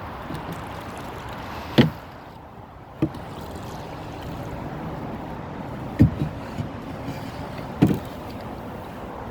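Paddling in a canoe: a steady wash of water with four sharp knocks against the boat, spread a second or more apart.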